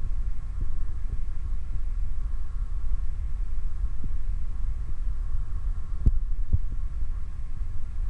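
Hedgehog breathing heavily and with effort, a close, low, steady rumble broken by a few short sharp sounds, two of them close together about six seconds in. This is the heavy, labored breathing of lungworm infestation.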